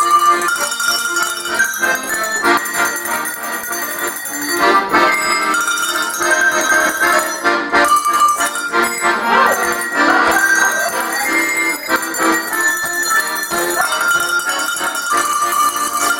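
A tune rung on a set of tuned cowbells with accordion accompaniment: sustained ringing bell notes over the accordion's chords, playing continuously.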